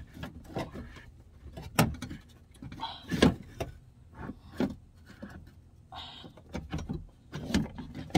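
Irregular knocks, clunks and scraping as a replacement window regulator and motor are worked by hand up into the sheet-metal door cavity of a 2007 Saturn Vue, with a short scraping rustle about six seconds in.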